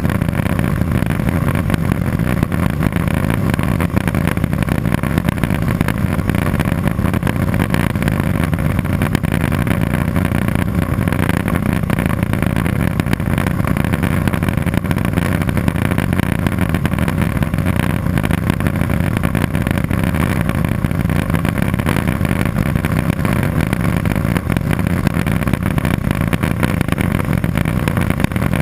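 Cessna 206 Soloy's turboprop engine and propeller running steadily, a constant loud drone heard from inside the cabin.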